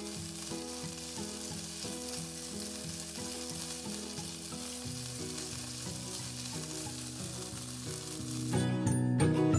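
Chicken pieces sizzling as they fry in oil in a nonstick pan, now lightly golden, stirred and turned with a silicone spatula. Soft background music plays under the sizzle and grows louder near the end.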